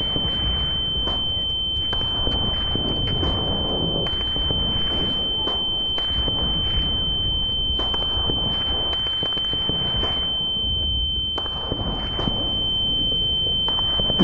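A steady high-pitched ringing tone, the film's ear-ringing effect for a stunned, deafened soldier, held over muffled background noise.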